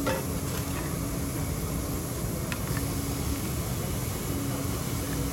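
Eggs frying in a large pan of butter on a gas burner, a steady sizzle, with the metal spatula clicking against the pan right at the start and again about two and a half seconds in.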